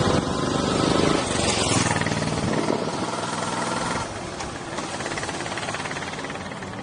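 Royal Enfield Classic 500 motorcycle's single-cylinder engine running as the bike rides past and away, with a rapid pulsing beat. It is loudest about a second in, then fades steadily as the bike recedes.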